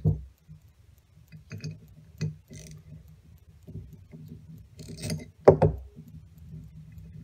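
Metal hand tools and a carburetor body being handled on a towel-covered workbench: scattered clinks and light rattles of metal on metal, with a sharper knock about five and a half seconds in.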